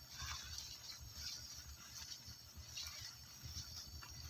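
Faint sizzling of a cream sauce in a frying pan over a wood fire, with soft rustling as fresh spinach leaves are pressed into the pan by hand.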